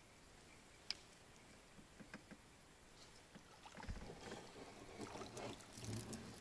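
Near silence with a couple of faint clicks, then about four seconds in a low thump followed by rustling and light knocks of things being handled in a boat.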